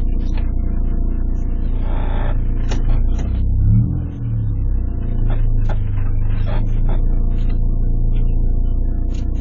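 Car driving, with a steady engine and road rumble and a scattering of short, irregular creaks and clicks from the rear suspension or body. About four seconds in the engine note dips and picks up again, like a gear change.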